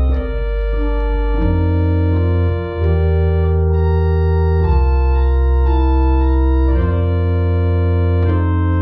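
1871 Walker pipe organ played in slow, held chords over a deep, strong bass, the harmony moving every couple of seconds.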